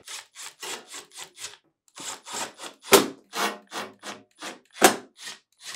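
Cordless drill/driver running screws back into a refrigerator's sheet-metal access cover: a rhythmic rasping about five strokes a second, with a short break and two louder sharp clicks about three and five seconds in.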